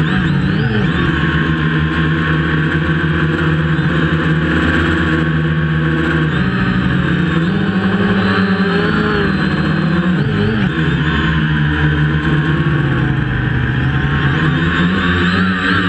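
DJI F450 quadcopter's brushless motors and propellers whirring, heard close up from the onboard camera, the pitch sliding up and down several times as the throttle changes in flight.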